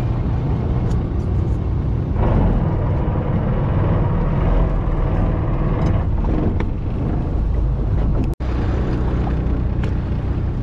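Fishing boat's engine running steadily with wind on the microphone. The sound drops out for an instant about eight seconds in.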